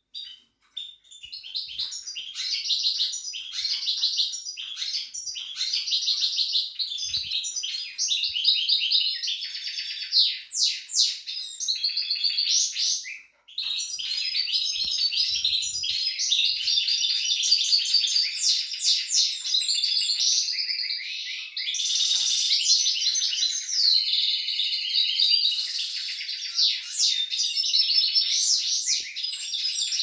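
Caged finches singing, from a stack of cages holding canaries, European goldfinches and canary–goldfinch hybrids: a near-continuous, high run of fast trills and twittering, with a brief break about 13 seconds in.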